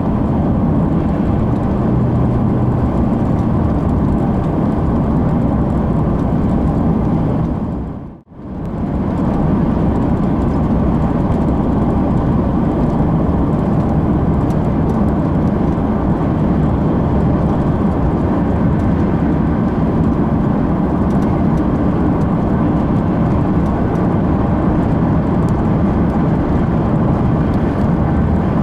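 Steady road noise inside a moving vehicle's cabin: engine, tyres and wind, with a brief dip almost to silence about eight seconds in.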